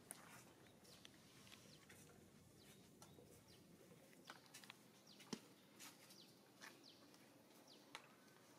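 Near silence: quiet outdoor ambience with scattered faint, short, high chirps and a single soft tap about five seconds in.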